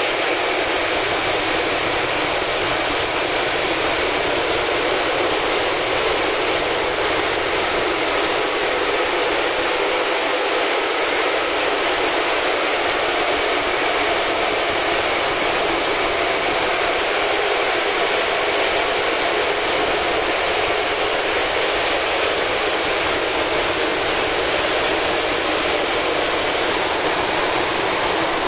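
Qube ZG500 five-chute optical color sorter running: a loud, steady, dense hiss that does not change.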